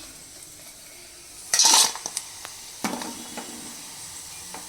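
Boneless chicken pieces deep-frying in oil with a low sizzle, while a spoon stirs and scrapes against the pan: one loud scrape about one and a half seconds in, then a few sharp knocks.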